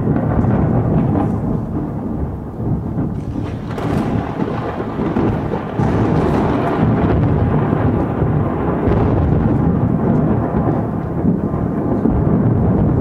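Recorded thunderstorm sound effect played over a hall's sound system: a continuous loud, deep rumble of thunder with rain.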